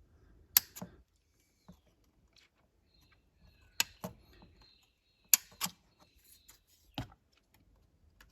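Sprue snips cutting plastic model-kit parts off the sprue: about seven sharp snips, several in quick pairs, with quiet in between.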